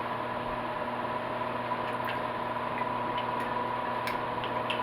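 A pan of onions, bell peppers and pineapple in sauce simmering on the stove, a faint steady sizzle with a few light ticks, over a steady electrical hum.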